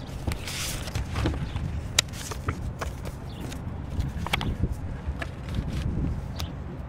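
Handling sounds as a disaster declaration is signed at a lectern: scattered sharp clicks and a brief rustle of paper and pen over a low steady background rumble.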